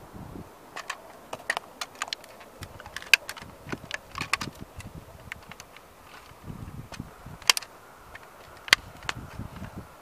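A 1:18 scale model Ferrari creaking and cracking under a person's weight as sneakers stand on its roof, giving irregular sharp clicks and snaps. The loudest snaps come a little after three seconds, at about seven and a half seconds, and near nine seconds.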